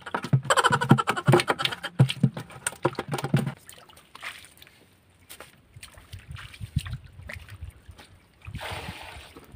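Hands splashing and sloshing in shallow muddy water while groping for fish, busy and rapid for the first few seconds, then quieter with one short splash near the end.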